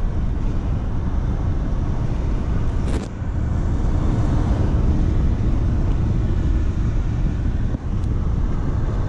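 Steady road and engine noise inside a taxi's cabin while it drives along a highway: a continuous low rumble, with a brief click about three seconds in.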